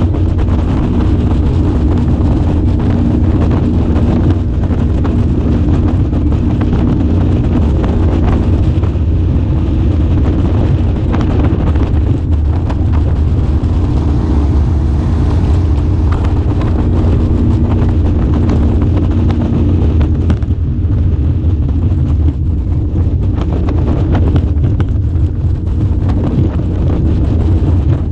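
Boat engine running steadily under way, a constant low drone, with wind rushing across the microphone.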